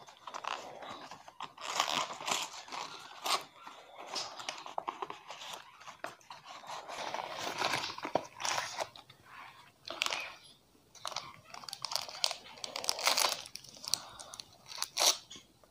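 The cardboard box and plastic inner wrapper of a Dark Fantasy Choco Fills cookie pack being opened by hand: irregular crinkling, rustling and tearing with short sharp snaps.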